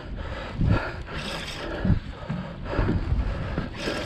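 Wind buffeting the microphone on an open boat deck in uneven gusts, over the general noise of the boat at sea.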